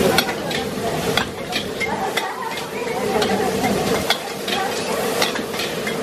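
Shrimp sizzling in a steel wok over a gas flame, with a metal ladle scraping and clanking against the pan in repeated, irregular strikes as it is stir-fried.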